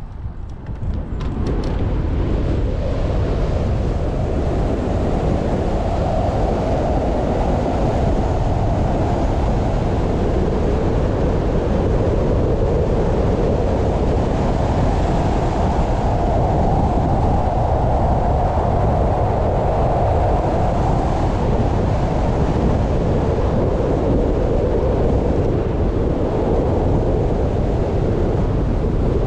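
Wind rushing over the microphone of a bike-mounted camera on a fast downhill ride, mixed with tyre noise on asphalt; it builds up over the first couple of seconds, then stays loud and steady.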